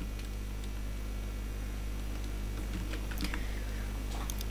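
A few computer keyboard and mouse clicks, most of them in the last second and a half, over a steady low electrical hum.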